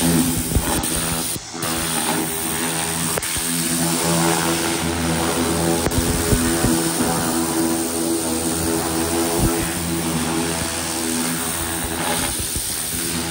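Pressure washer spraying a hiss of water onto the bare steel of a chemically stripped car body shell, rinsing off the loosened paint and rust residue, over the steady drone of the pressure washer's engine. The spray dips briefly about a second and a half in.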